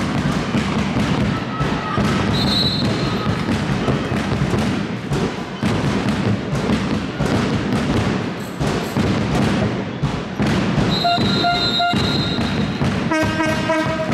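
Crowd noise at an indoor handball game: steady clapping and thudding, with short shrill whistle-like tones about two seconds in and again around eleven seconds, and a pitched horn-like blast about a second before the end.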